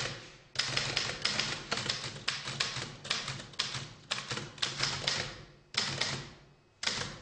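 Typewriter keys struck in rapid runs of clicks, broken by short pauses, with a longer pause near the end: a statement being typed up during an interrogation.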